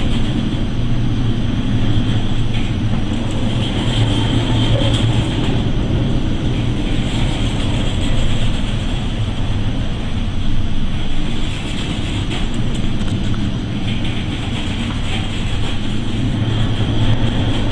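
Boat engine running steadily under a broad rush of wind and water.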